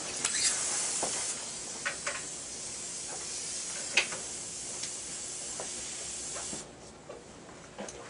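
Dental suction tube hissing steadily, cutting off suddenly about six and a half seconds in, with a few light clicks scattered through.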